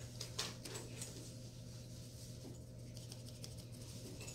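Quiet room tone: a steady low hum with a few faint soft clicks and light rustles, one click about half a second in.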